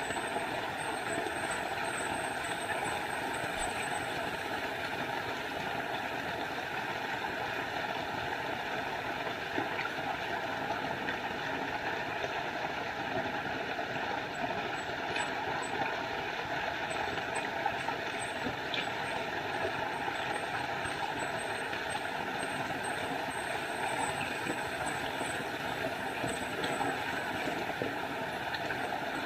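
Small forest waterfall, water rushing steadily, with faint high-pitched chirps in the first few seconds and again through the middle and later part.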